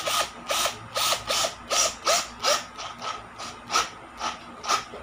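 Clicking from the front collar of an OUTOA 36 V cordless drill (chuck or torque-clutch ring) as it is twisted by hand through its detents, a dozen or so clicks at about two to three a second.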